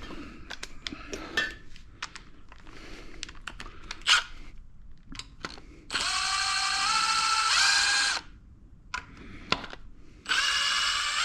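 Cordless power tool spinning long engine bolts out: a steady whine that steps up in pitch, about six seconds in and lasting about two seconds, and a second run near the end. Before it, scattered clicks and clatter of tool and socket handling.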